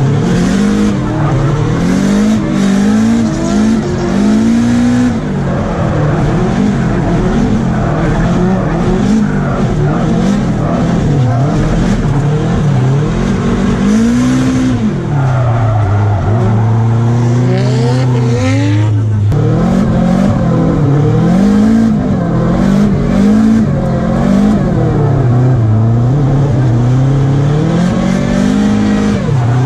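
Nissan S13 drift car's engine heard from inside the cabin, revving up and down over and over through a drift, with tyres skidding. Around the middle the revs hold steady for a few seconds before rising and falling again.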